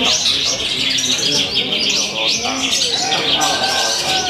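Long-tailed shrike (cendet) singing a fast, unbroken run of high chirps and chatters.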